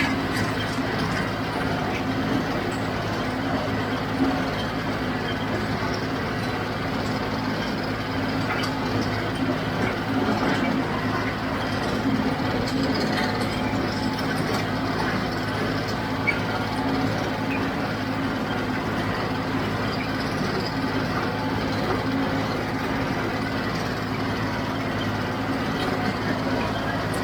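John Deere 5055D tractor's three-cylinder diesel engine running steadily under load while powering a JD 348 square baler, with the baler's machinery working alongside it.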